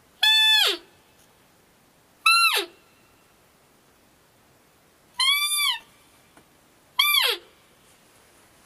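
Roe deer call blown in a series of fiep calls: four short high-pitched calls about two seconds apart, each holding its pitch and then dropping steeply at the end. They imitate a roe doe's call to lure a buck in.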